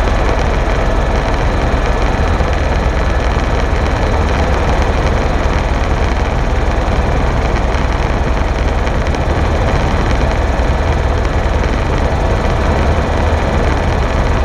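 Helicopter in flight: loud, steady rotor and engine noise, heaviest in the low end, with a few faint steady whine tones above it.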